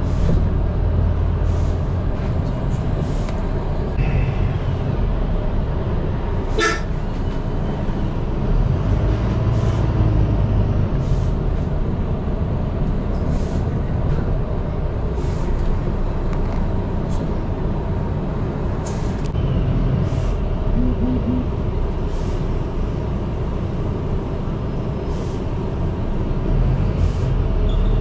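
Ride noise inside a moving London bus: a steady low engine and road rumble, with frequent clicks and rattles from the bodywork.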